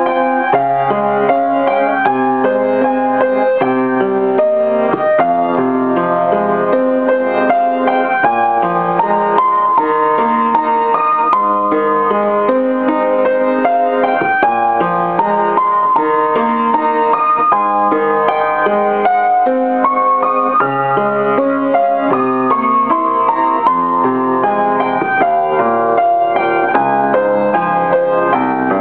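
Solo upright piano playing a melody with accompanying chords.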